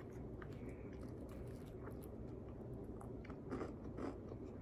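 A person chewing crunchy fried chicken, with irregular crackles and wet mouth clicks and a couple of louder crunches about three and a half seconds in.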